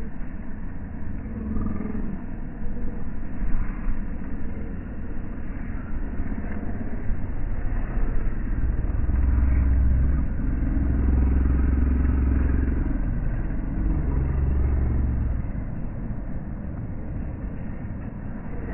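Low, continuous engine rumble that grows louder in the middle and eases off again.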